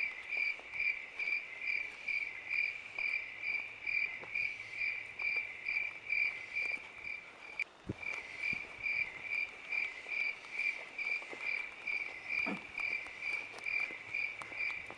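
A cricket chirping in a steady, even rhythm of about three high chirps a second, pausing briefly about halfway through. A faint knock sounds just after the pause.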